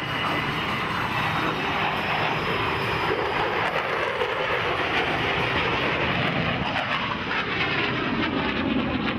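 Fixed-wing aircraft flying at an airshow: a loud, steady rush of engine noise with slight shifts in pitch as it moves through the sky.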